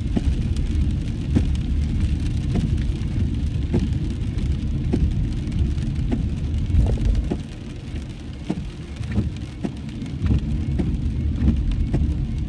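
Rain drops hitting a moving car's windshield and roof, heard from inside the cabin, over a steady low rumble of road noise. The rumble eases for about two seconds past the middle.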